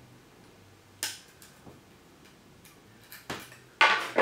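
Scattered sharp clicks of a screwdriver tip picking at the thin edge of an oyster shell to make small holes. Two louder clacks come near the end.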